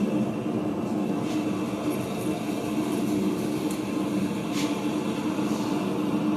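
A blacksmith's forge running with a steady roar, with a couple of faint metallic clicks.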